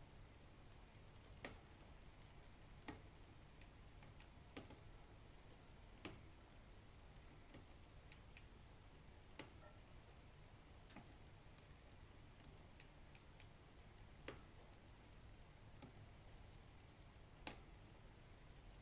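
Shimano 105 rear derailleur giving sharp knocking clicks as the crank is turned, about one every second and a half, some coming in quick pairs. It is an abnormal knock on a new bike that can be felt as a jolt through the drivetrain.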